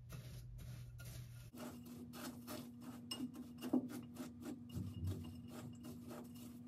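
Snack mix of pretzels, cereal and M&Ms being stirred in a bowl with melted white chocolate: a quick run of rubbing scrapes and light clicks of the pieces against the bowl, with one sharper click a little past the middle.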